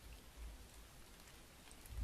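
Faint light rain pattering, with a few soft drip-like ticks and low, muffled thuds.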